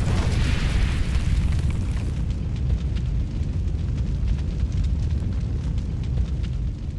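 Cinematic logo-intro sound effect: a deep, sustained rumble with a hissing swell in the first two seconds and faint crackling throughout, fading away near the end.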